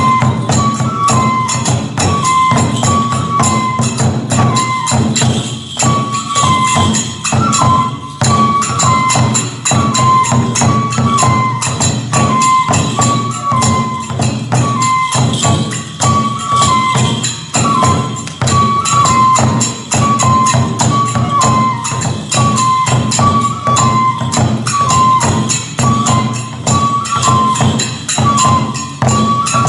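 Kagura festival music: a bamboo flute repeating a short stepped melody over rapid taiko drum strokes and the constant clash of small hand cymbals.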